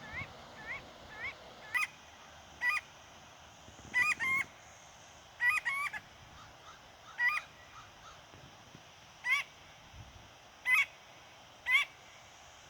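A bird calling: loud, sharp call notes that rise and hook over, single or in quick runs of two or three, repeated every second or two, with faint quicker notes in the first second.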